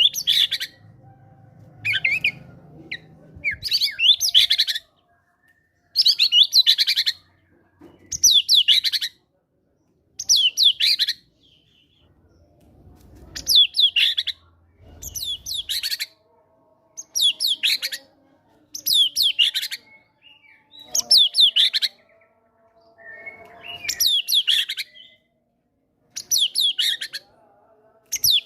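White-rumped shama singing: bright, fast-sweeping song phrases of about a second each, repeated every one and a half to two seconds, delivering mimicked great tit (gelatik batu) material.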